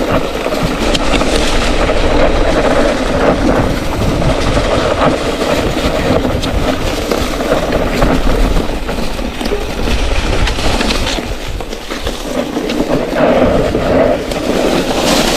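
Mountain bike rolling fast down a rocky trail: the tyres rumble and crunch over stones and fallen sticks while the bike rattles continuously, with a steady low rumble of wind on the microphone.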